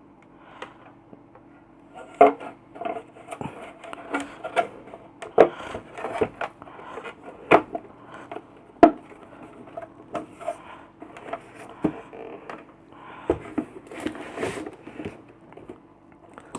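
Parts of a compressor nebulizer's casing being handled and fitted back together: irregular clicks, taps and rubbing, with a few sharper knocks.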